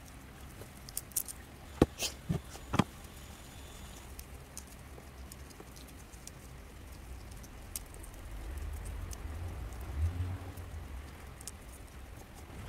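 Succulent plants being cut with a knife and handled: a few sharp clicks and snaps in the first three seconds, then scattered light ticks. A low rumble swells around ten seconds in.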